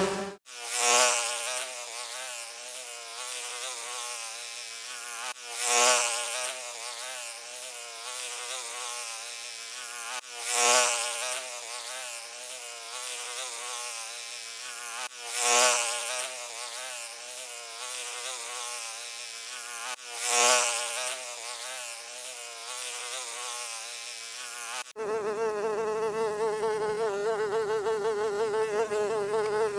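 Flying insect's wing buzz, swelling loud about every five seconds as if passing close by, five times over. About 25 seconds in it cuts to a different, steadier and higher buzz.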